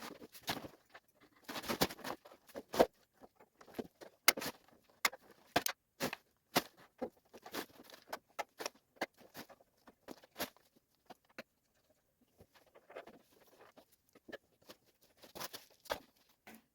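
Scattered clicks, taps and light knocks of hand work on a car's front end: tools and plastic trim parts being handled and fitted, at an uneven pace with short quiet gaps.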